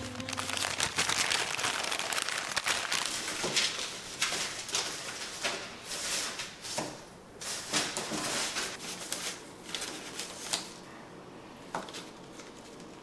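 Newspaper rustling and crinkling as it is unfolded from around a bunch of cut flowers, with sharp crackles of the paper. The rustle is strongest for the first ten seconds, then quieter handling of the stems on the paper with a few soft taps.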